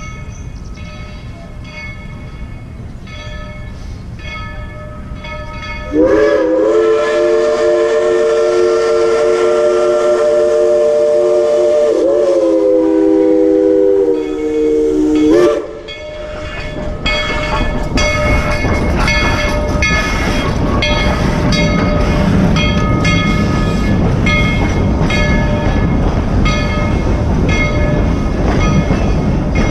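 Narrow-gauge steam locomotive No. 190, a 1943 Baldwin 4-6-0, blows a loud multi-note chime steam whistle. The whistle starts about six seconds in and holds for roughly ten seconds, with a short re-sounding partway through. Then comes the rumble and rapid clicking of the passenger cars rolling past on the track.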